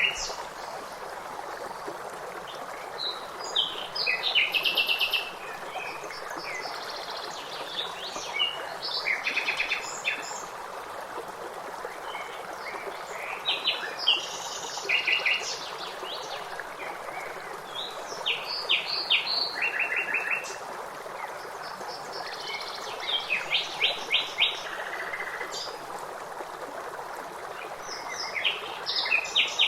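Songbirds singing short, rapid trilled phrases every few seconds over the steady rush of running water.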